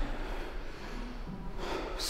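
A man's short, forceful breath out through the nose near the end, over faint room noise.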